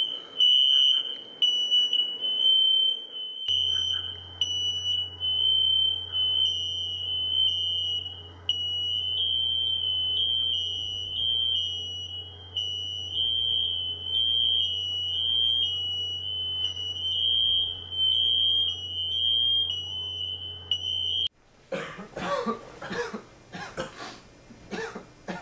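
Ceiling smoke alarm sounding one continuous high-pitched tone for about twenty seconds, then cutting off suddenly. Coughing follows in the last few seconds.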